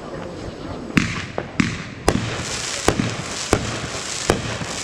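Fireworks going off: a quick run of about seven sharp bangs starting about a second in, with a crackling hiss between the later ones.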